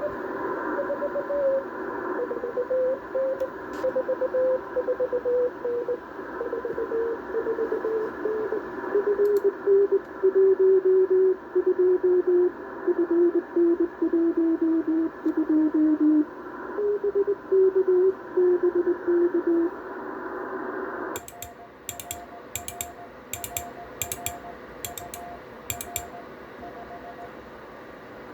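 Morse code (CW) over a 10 GHz amateur radio link. For about twenty seconds a keyed signal tone comes through receiver hiss, sliding lower in pitch in steps as it drifts. Then the hiss drops and the transceiver's higher-pitched keying sidetone sends Morse with sharp key clicks.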